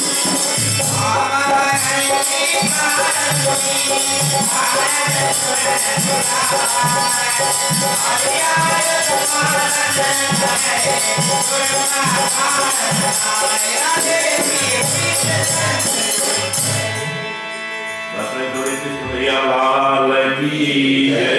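Hindu devotional group singing with a hand drum and fast jingling percussion such as hand cymbals or tambourine. About 17 seconds in the drum and jingles stop and the music drops, then singing over sustained accompaniment resumes near the end.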